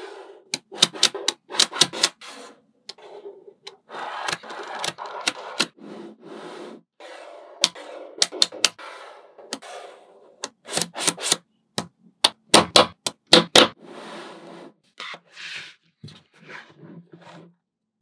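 Small neodymium magnetic balls clicking sharply as they snap together into strips and panels, often several clicks in quick succession, between stretches of rubbing and scraping as the ball strips slide over the tabletop.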